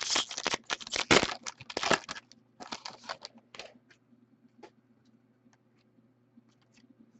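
Foil trading-card pack being torn open and crinkled: rapid rustling for the first two to three seconds or so, then only scattered faint ticks.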